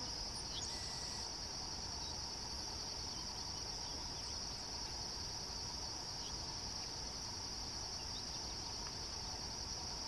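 Steady, high-pitched chorus of insects in the background, with a few faint, short chirps now and then.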